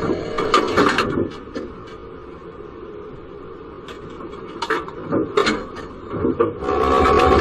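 Running noise inside a tram's driver's cab, with a few sharp clicks and knocks in the middle. It is louder in the first second and again near the end.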